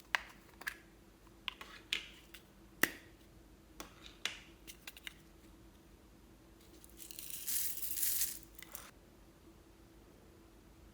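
Glossy slime being worked by hand: a string of sharp sticky pops and clicks, then a longer crackling squelch about seven seconds in.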